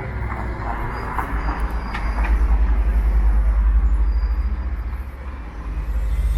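City street traffic passing close by, a heavy vehicle rumble that swells in the middle and eases near the end.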